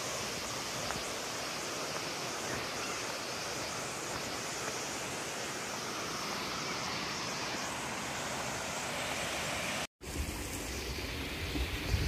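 Steady rushing of a rocky stream tumbling over stones and small cascades. About ten seconds in there is a sudden cut, after which the water is quieter and wind buffets the microphone.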